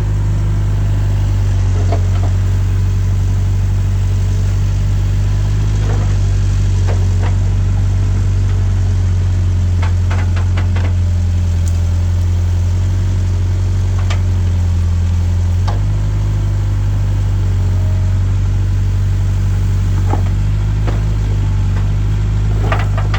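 Backhoe loader's diesel engine running steadily, its note shifting a little about two-thirds of the way in, with scattered sharp clicks and knocks that bunch up near the end.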